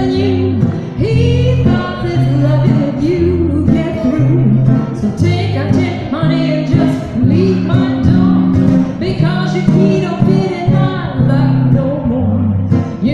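Live old-time blues song: a woman singing over two guitars playing chords and bass notes.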